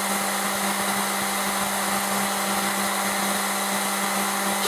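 Two Bullfinch pencil-flame gas torches burning with a steady hiss as they heat the necks of brass rifle cases for annealing, over a constant low hum.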